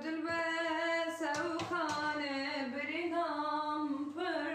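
A woman singing, holding long notes that glide up and down, with little or no accompaniment.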